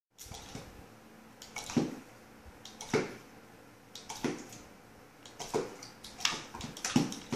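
Hand-pump spray bottle squirting water at a dog in short bursts, about six of them a second or so apart, each a quick click and hiss, mixed with the wet snaps of the dog's mouth as it tries to catch the spray.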